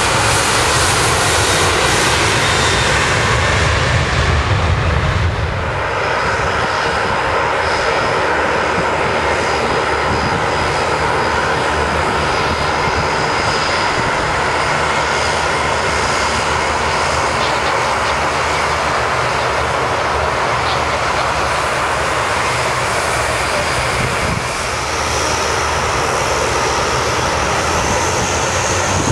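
Saab 2000 turboprop airliner's two Allison AE2100A engines and six-bladed propellers running as it taxis, a steady loud engine drone. A higher whine joins in during the last few seconds.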